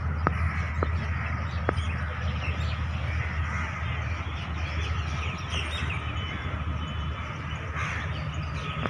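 Birds calling over a steady low rumble, with a few faint ticks in the first two seconds.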